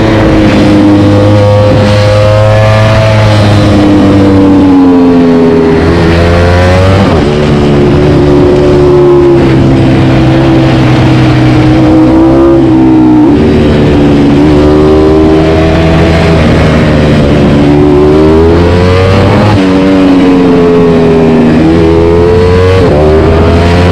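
Ducati Panigale V4 engine through an Akrapovič GP exhaust, loud, revving up and dropping back several times as the bike accelerates and shifts gears.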